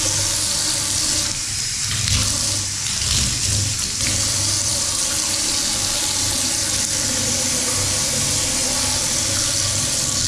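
Bathtub wall faucet running, a steady stream of water pouring from the spout into the empty tub, as the newly installed faucet is tested.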